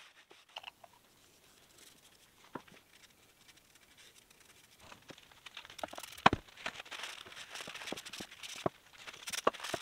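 Paper towel rubbed and crinkled by gloved hands across a steel plate, an uneven rustling with a few light knocks, mostly in the second half.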